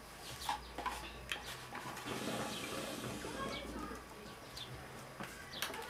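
Hookah water bubbling in a low gurgle for a few seconds as someone draws smoke through the hose, with a few small handling clicks.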